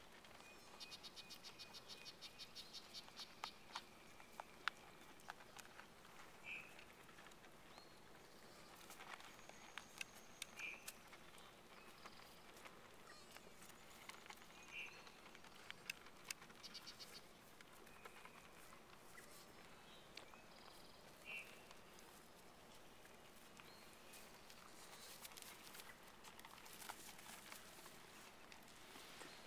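Near silence: faint outdoor ambience with a rapid ticking trill for a couple of seconds near the start, four short high chirps spaced several seconds apart, and scattered light clicks.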